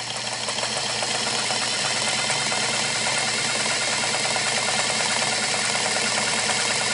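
Restored Singer Model 237 sewing machine running steadily at speed, sewing a fine, close straight stitch through tissue-thin paper: a fast, even stitching clatter that comes up to speed in the first second. Its drive uses slides rather than steel gears below the bed, and it runs quietly down there.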